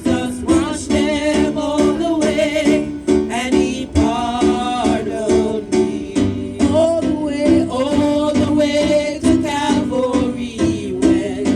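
Live gospel worship music: singing over accompanying instruments with a regular beat.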